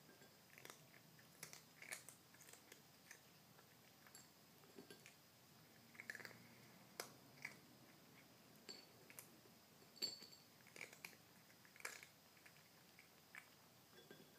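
A kitten crunching and chewing Sheba dry kibble from a plate. The crunches are faint and irregular, about one or two a second, with a sharper one about ten seconds in.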